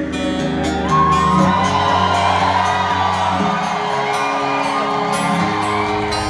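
Rock band playing live, acoustic guitar strumming over bass and drums, with the crowd whooping and cheering over the music from about a second in. The low end drops back a little past the middle.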